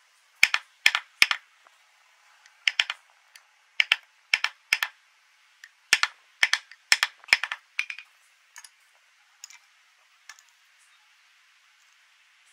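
A small metal carving tool cutting a round hub into the centre of a carved wooden wheel: a series of sharp clicks, mostly in quick groups of two or three, thinning out over the last few seconds.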